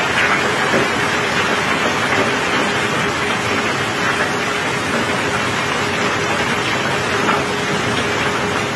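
Cobblestones sliding and clattering in a steady dense rush as the barge is unloaded, mixed with rain on the wet steel deck. A steady machine hum runs underneath, and a few sharper single clacks stand out.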